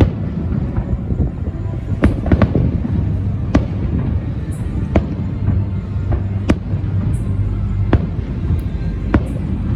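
Fireworks bursting: sharp bangs about once a second or so, with a quick cluster of three about two seconds in, over a steady low rumble and the show's music.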